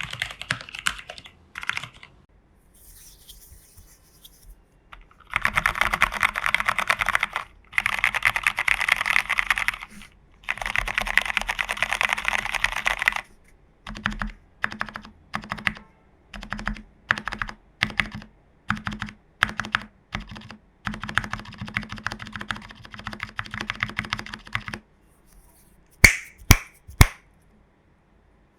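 Mechanical keyboard being typed on: a plateless 40% TU40 plastic-case build with foam dampening, Cherry Hyperglide Black linear switches and XMI keycaps. Long fast runs of typing give way to slower single keystrokes with a deeper thud, and three sharp, loud clicks come near the end.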